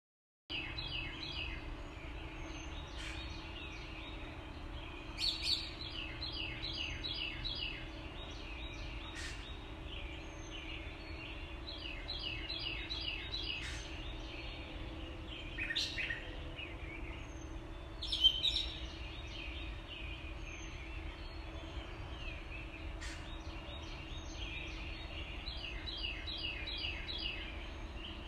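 Steady rush of water pouring over a low dam onto rocky rapids, with songbirds singing repeated quick chirping phrases over it and a few louder calls about five, sixteen and eighteen seconds in.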